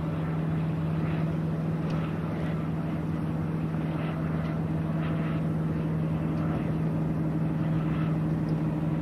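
Boat engine running steadily, a constant low drone with an even hum, heard from aboard the boat.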